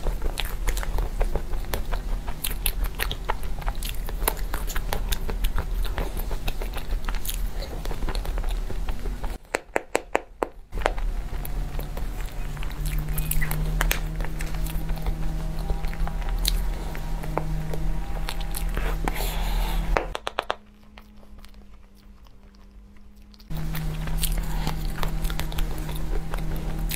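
Close-miked eating of a layered chocolate cream cake: a metal spoon clicking and scraping against the plastic box, and chewing. It stops briefly about ten seconds in and again for about three seconds after twenty seconds.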